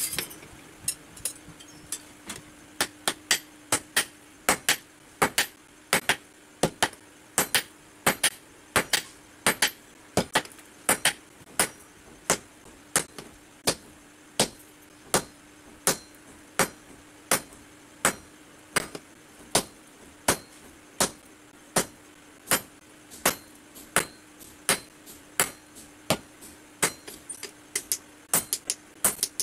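Hammer blows on red-hot steel on an anvil, a sharp metallic strike about twice a second, as a blacksmith forges the head of a basula (carpenter's adze).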